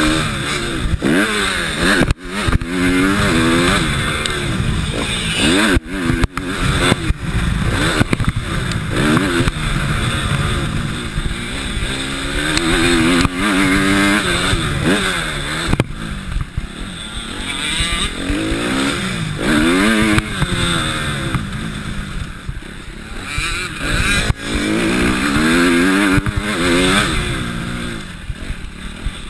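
Motocross bike engine heard from a camera mounted on the bike, revving up in rising sweeps again and again as it accelerates, dropping back between them, with a few brief cuts in the sound.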